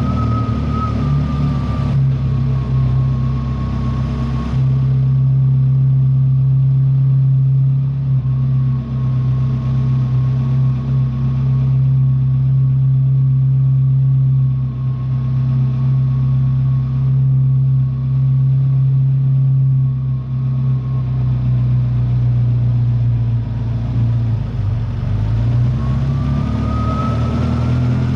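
Ferrari F40's twin-turbo V8 running at a steady engine speed, with a thin higher tone above the low drone. About four and a half seconds in the note settles to a lower, steadier drone. Near the end the revs climb and then drop back.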